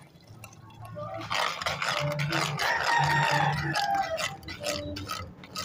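A rooster crowing once: a long call starting a little over a second in, lasting about three seconds and falling in pitch toward its end.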